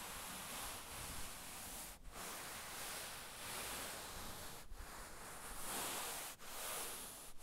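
A hand rubbing and sliding over a cloth surface: a soft, continuous swishing in long strokes, each broken off by a brief pause, four times in all.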